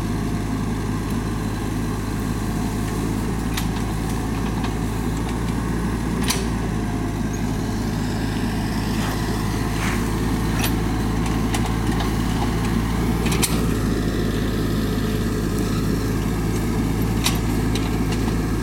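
Small excavator's diesel engine running steadily as it works hard laterite ground, with a sharp clank every few seconds.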